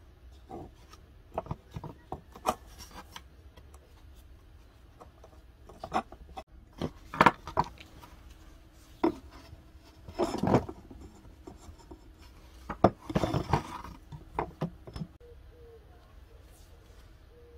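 Paracord being pulled through a hole in a wooden handle and worked by hand, making a series of irregular rubs and scrapes. Light knocks on the wooden bench are mixed in, and there are several louder rasping pulls about 7, 10 and 13 seconds in.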